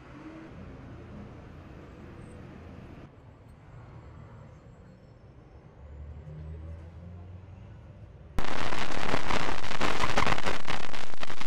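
Faint outdoor rumble of street noise, then, about eight seconds in, a sudden loud, harsh crackling noise that carries on without a break.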